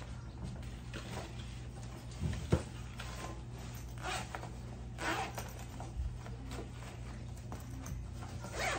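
Zipper on a child's school bag being pulled in several short strokes, with handling rustle and one sharp knock about two and a half seconds in.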